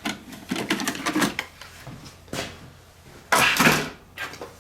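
Scrapped computer motherboards being handled and set down, a run of hard clattering knocks and rattles, loudest about three and a half seconds in.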